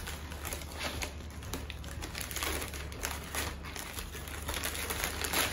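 Gift-wrap paper crinkling and tearing as a wrapped box is unwrapped by hand: a run of rustles and crackles, loudest near the end.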